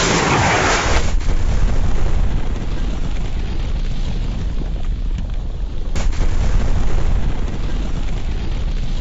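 Movie-style explosion sound effect: a blast about a second in, followed by a long low rumble.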